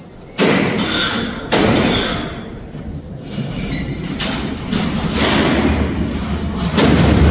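A row of heavy barred steel prison cell doors sliding together on a hand-lever gang mechanism, clanking and rumbling with loud metal bangs: one about half a second in, another about a second and a half in, and more near the end.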